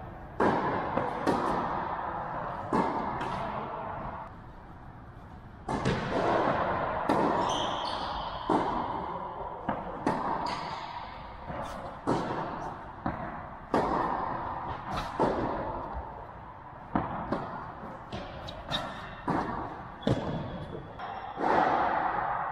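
Tennis ball being struck by rackets and bouncing on an indoor court during rallies, a string of sharp hits each echoing in a large hall.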